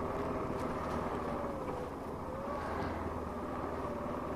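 Steady engine and road noise heard from inside a vehicle while driving, with a faint tone that dips and comes back up about two seconds in.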